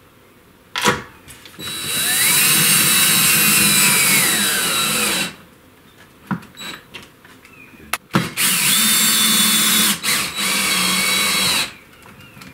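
Cordless drill driving two mounting screws with a nut-driver bit, one after the other: two runs of motor whine of about three and a half seconds each. The pitch sags toward the end of the first run as the screw draws tight, and the second run falters briefly partway through.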